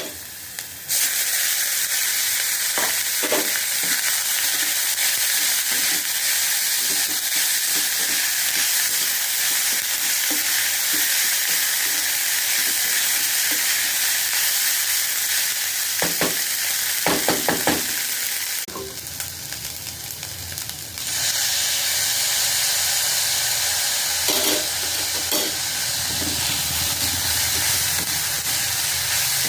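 Vegetable fried rice sizzling in a frying pan as it is stirred, with short scraping clicks now and then. The sizzle drops away briefly twice, once just at the start and once about two-thirds of the way through.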